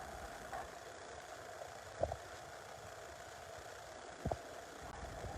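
A steady mechanical hum, with two brief sharp sounds, one about two seconds in and one a little after four seconds.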